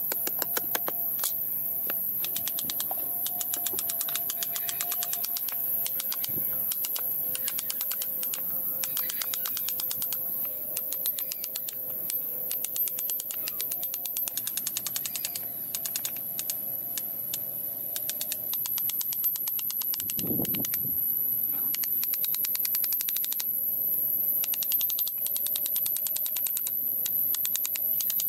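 Small hammer tapping a steel chisel into a block of wood in quick light strikes, chips splitting off, with a single duller thud about twenty seconds in. A steady high whine sits behind.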